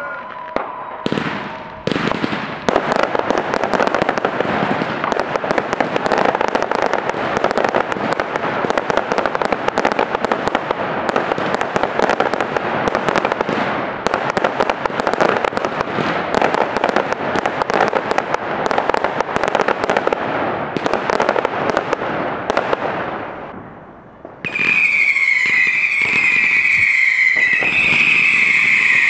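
Fireworks going off: about twenty seconds of dense, rapid crackling and popping, then near the end a loud whistle with a slightly wavering pitch as whistling fireworks climb.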